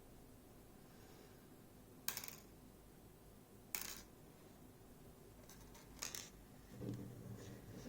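Small metal clicks from the tiny pins and tools of a Miwa JN lock being handled while it is taken apart: three sharp clicks, about a second and a half to two seconds apart, with a low murmur near the end.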